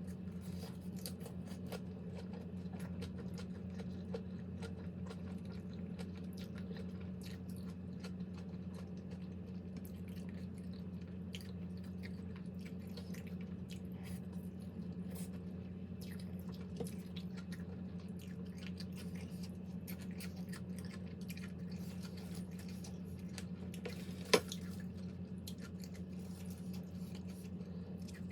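A person eating close to the microphone, chewing with many small wet clicks and ticks, over a steady low hum. One sharp click stands out about 24 seconds in.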